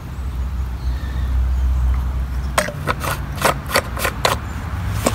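A quick run of sharp plastic clicks, about four a second for under two seconds, then one more, as the black fuel cap is worked onto the plastic fuel tank's filler neck, over a low rumble.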